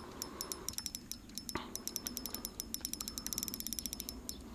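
Spinning reel clicking in short, irregular runs, with a quicker run near the end, while a carp foul-hooked by its upper fin pulls on thin braided line.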